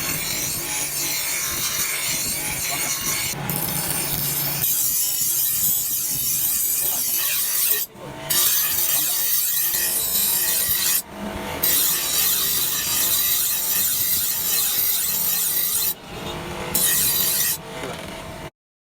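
Steady abrasive rasping of a file worked over the steel of a hand-forged tree-cutting blade, broken by a few brief pauses. It stops abruptly near the end.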